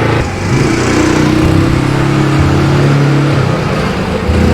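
A 150cc ATV engine running fairly loud at low speed, its pitch stepping up and down a few times as the throttle changes.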